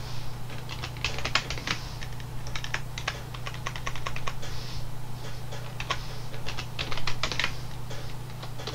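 Typing on a computer keyboard: irregular runs of quick keystrokes, over a steady low hum.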